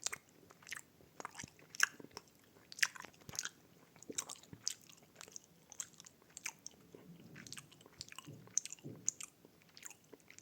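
A person chewing a soft, rubbery gummy candy close to the microphone, with irregular mouth clicks and smacks several times a second.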